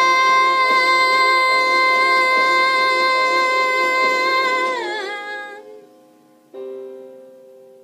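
Woman singing, belting one long high note for about five seconds, sliding down as it fades. A piano chord is struck about six and a half seconds in and rings away.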